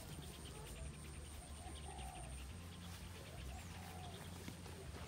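Rice-paddy ambience: a steady high-pitched insect drone with scattered short bird calls and chirps, over a low steady rumble.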